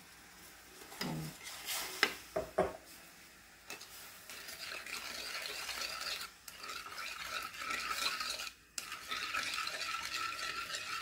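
Metal spoon clinking against a jar and a steel wok a few times about one to two and a half seconds in, then stirring and scraping through simmering syrup in the wok, with a steady hiss of the hot syrup from about four seconds in as it cooks down to thicken.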